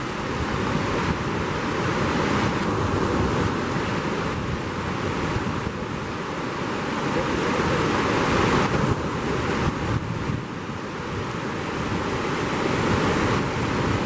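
Steady rushing of a mountain waterfall and the rocky stream below it, water pouring and churning over stones.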